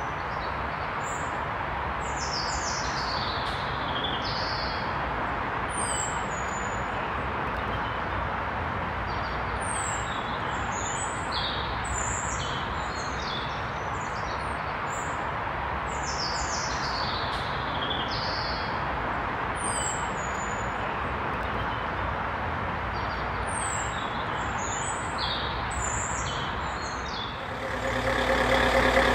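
Many short bird chirps and song phrases over a steady background of distant traffic noise. Near the end a louder sound with steady tones comes in.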